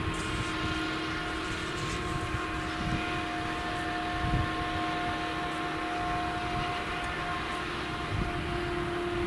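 Claas Jaguar 970 self-propelled forage harvester with its V8 engine under load, chopping sorghum with an Orbis 600 header: a steady whine of several held tones over a rough low rumble.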